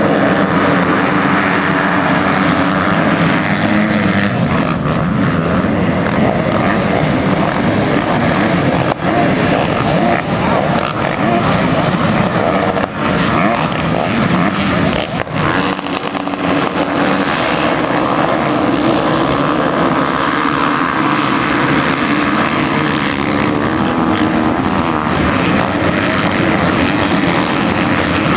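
Loud, continuous engine noise from a field of motocross motorcycles racing, many engines revving together at high throttle.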